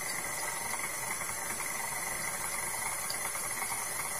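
KitchenAid Classic stand mixer running steadily, its motor whirring as the dough hook kneads bread dough.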